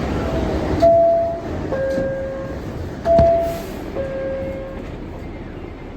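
Subway car door chime sounding a two-tone high-then-low ding-dong twice over the steady rumble of the R62 train, with a sharp knock at the start of each pair.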